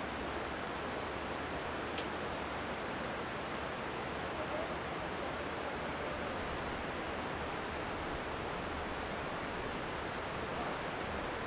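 Steady rushing outdoor noise with no speech, and one short, sharp tick about two seconds in.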